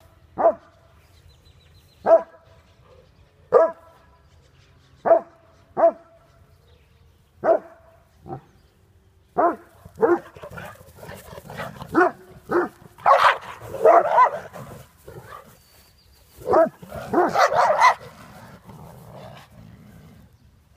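Dogs fighting: single sharp barks every second or two, then two louder stretches of rapid, overlapping barking, one past the middle and one near the end.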